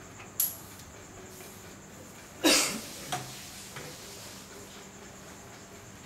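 A few handling knocks: a light click, then a louder sharp clatter about two and a half seconds in, and a faint knock just after it.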